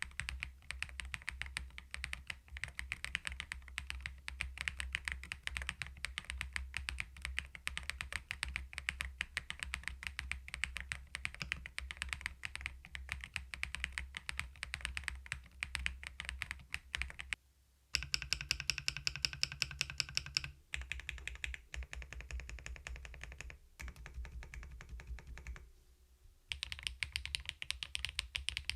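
Typing on a CoolKiller VIVID67 full-aluminium keyboard, a fast run of keystrokes on its stock Peach switches. After a brief pause about eighteen seconds in, the typing goes on with the board fitted with Chosfox switches, which give a different click.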